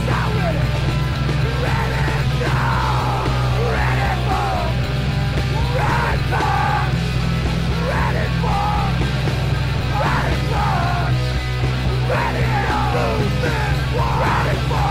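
Loud music with a steady heavy bass under repeated yelled vocal cries, with no words that can be made out.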